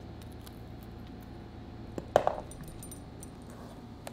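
Light metallic jingling of a dog's collar tags as the dog moves and works at a celery stalk, with one brief louder sound about two seconds in.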